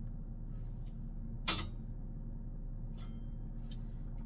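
A steady low hum, with one sharp knock about a second and a half in and a fainter click near three seconds.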